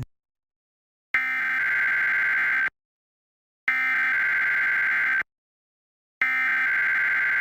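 Emergency Alert System SAME header: three bursts of raspy, modem-like digital data tones, each about a second and a half long with about a second of silence between them. This is the coded header that opens an EAS alert, here a Required Monthly Test.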